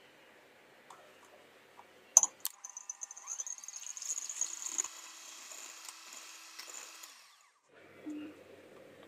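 Electric hand mixer whipping egg whites in a glass bowl. It switches on with a click about two seconds in, runs with a high whine and the rattle of the beaters for about five seconds, then stops.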